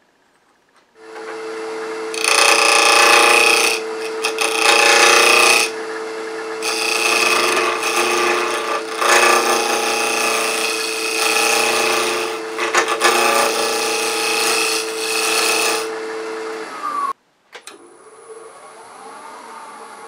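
Wood lathe spinning a small wood block while a gouge cuts its end: a loud, rough cutting noise that comes in heavier stretches over a steady tone from the lathe. The cutting stops abruptly near the end, leaving a much quieter steady running sound.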